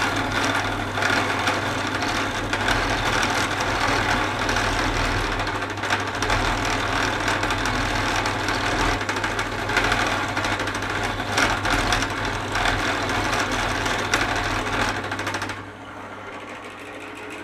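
Drill press running an end mill bit that is side-cutting metal: a steady motor hum under a rough, chattering cutting noise. Near the end the cutting stops and the sound drops to a quieter hum.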